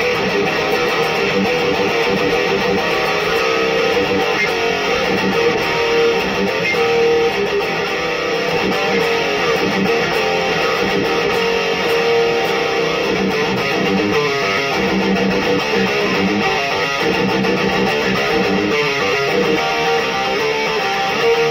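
Electric guitar played with heavy distortion through a Black Cat Amps Djenttonic distortion/preamp pedal, an Electro Harmonix 44 Magnum power amp and a Peavey 1x12 cabinet: loud, continuous metal riffing.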